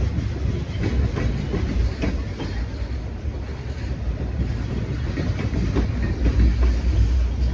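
Tank cars and covered hoppers of a freight train rolling past: a steady low rumble of steel wheels on rail, with irregular clicks as the wheels cross rail joints.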